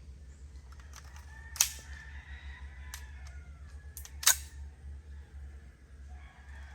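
Two gunshots about two and a half seconds apart, with a few fainter sharp cracks between them.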